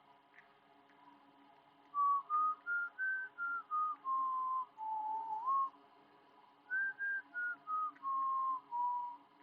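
A person whistling a tune in two phrases. Each phrase is a run of short notes that climb and then step back down, with a small upward slide near the end of the first. A faint steady hum runs underneath.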